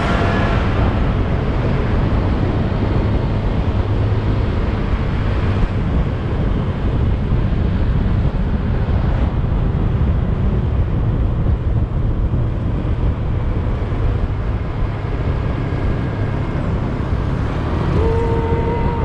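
Wind noise and motorcycle engine heard through a helmet-mounted GoPro Hero 7 fitted with a foam wind-muffler cover while riding at speed: a steady, dense low rumble. A short pitched tone sounds near the end.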